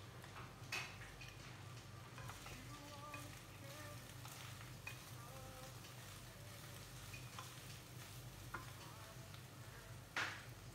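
Chicken sisig being stirred in a frying pan: a utensil scraping and clicking against the pan over a faint sizzle, with a steady low hum underneath and a sharper clack near the end.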